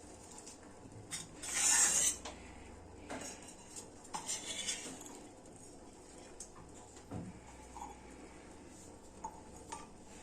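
A spoon clinking and scraping against a cooking pot while milk is stirred. The loudest scrape comes about two seconds in, a second cluster follows around four seconds in, and a few small clinks come after.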